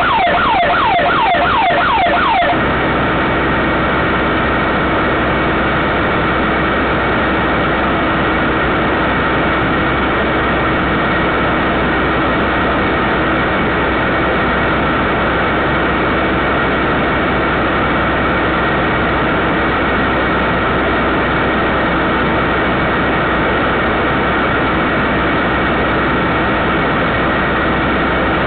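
Security siren sounding a fast repeating wail that cuts off about two and a half seconds in, leaving a steady hiss with a faint constant hum.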